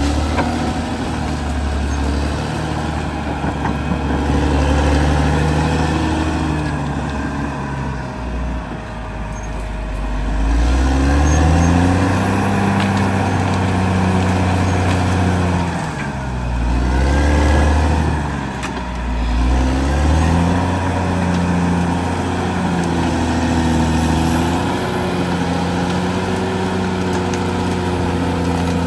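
Caterpillar D6R XL bulldozer's diesel engine working, its pitch climbing about a third of the way in, dipping sharply twice in the middle, then running steadier near the end.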